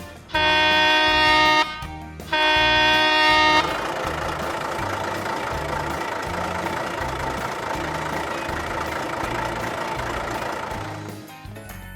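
A vehicle horn honks twice, each honk lasting over a second. It is followed by a steady running vehicle noise that fades out near the end, over light background music with a steady beat.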